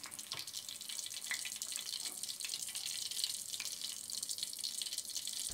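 Hot oil in a wok sizzling steadily around a whole tilapia deep-fried golden and crisp, with faint scattered crackles.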